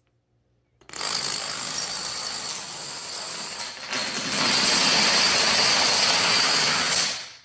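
Marbles rolling and rattling along a marble run track: a steady rolling rumble that starts suddenly about a second in, gets louder around the middle and stops near the end.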